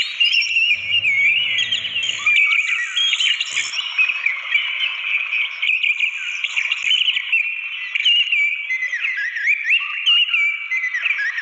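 Orange-headed thrush singing continuously in rapid, varied, warbling phrases over the steady rush of a waterfall.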